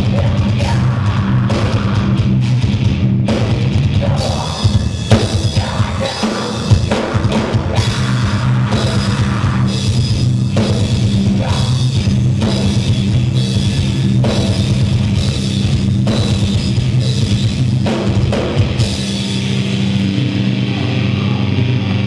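Live rock band playing loud, heavy music on electric guitar, bass and drum kit, with hard drum hits. Near the end the drumming stops and a held chord rings on.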